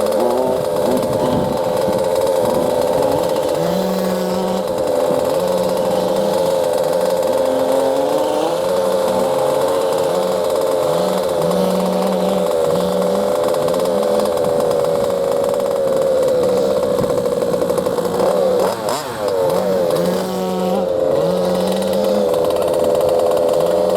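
A small, high-revving model engine runs steadily with a buzzing, chainsaw-like tone. Its pitch wavers, then swings up and down briefly near the end, as if throttled.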